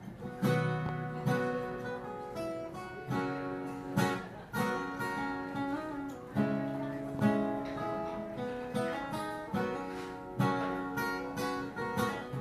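Acoustic guitar strumming chords in a steady rhythm, with a new chord about every second: the instrumental intro of a country song, before the vocal comes in.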